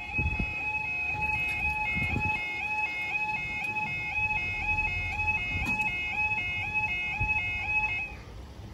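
Level crossing audible warning sounding its two-tone alarm while the barriers lower, the pitch stepping back and forth about twice a second. It cuts off suddenly about eight seconds in, as the barriers come fully down.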